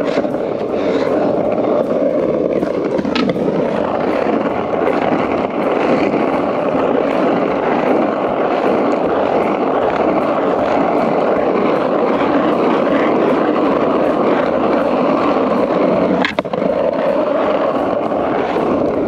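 Skateboard on Powell Peralta Dragon 93A wheels rolling steadily over rough asphalt, with a brief break about sixteen seconds in.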